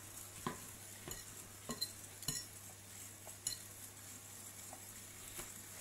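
Wire whisk beating wet cake batter in a glass mixing bowl, with light, irregular taps of the metal wires against the glass.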